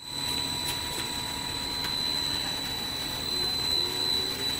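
Twin-screw food extruder line running: steady machine noise with a constant high-pitched whine and a few faint ticks.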